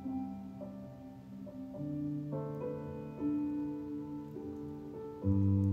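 Gentle instrumental background music: held keyboard-like notes and chords that change every second or so, with a deeper bass note coming in and the music getting louder near the end.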